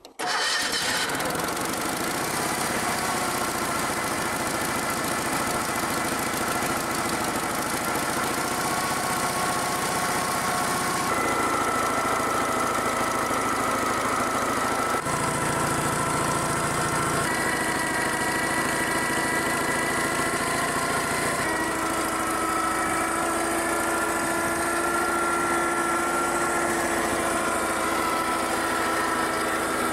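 Engine of a hydraulic wood splitter running steadily, with a steady whine whose pitch jumps abruptly several times.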